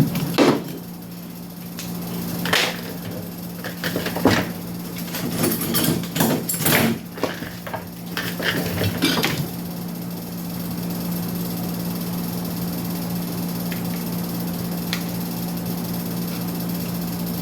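A run of irregular clicks and knocks from handling a circuit board and its wire connectors, over a steady low hum. The knocks stop about ten seconds in, leaving only the hum.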